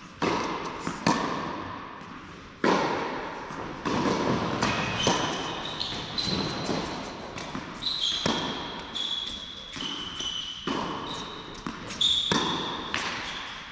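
Tennis rally on an indoor hard court: racket strikes on the ball and ball bounces every second or two, each ringing out in a large hall. In the second half, sneaker squeaks on the court surface come between the hits.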